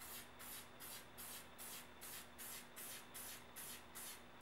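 Aerosol spray-paint can hissing faintly in short, quick bursts, about three or four a second, misting light coats of paint through a camouflage stencil.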